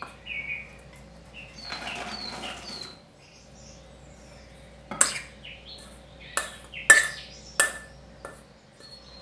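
Metal spoon and stainless steel mixing bowl: light scraping with a few short high squeaks, then four sharp ringing clinks in the second half as flour is tipped out of the bowl.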